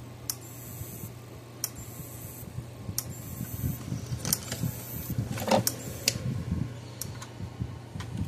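Cashmans CS6000 electric fence charger ticking with a sharp click about every 1.3 seconds, each click one high-voltage output pulse, over a steady low hum: the repaired charger is firing normally. Test leads and the meter are handled with some rustling and knocking in the middle.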